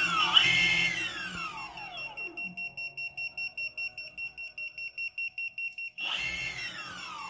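Boosted electric skateboard's belt-driven rear motors whining, the pitch sliding down as the wheels spin down, with a second short spin-up and spin-down about six seconds in. Between them an electronic beeper pulses steadily about five times a second, the board's warning of a flat battery.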